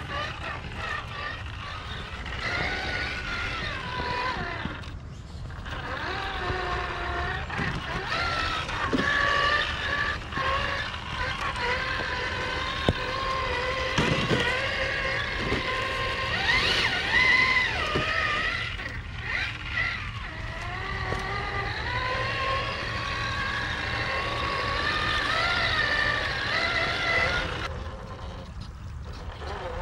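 Electric scale RC crawler's motor and gear drive whining, the pitch rising and falling with the throttle.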